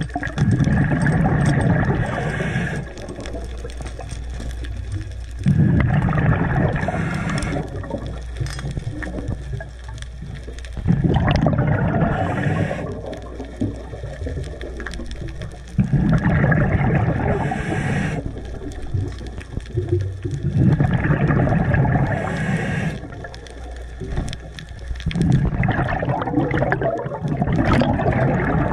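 Scuba diver breathing underwater through a regulator, exhaled bubbles coming in bursts of about two seconds, roughly every five seconds, six times.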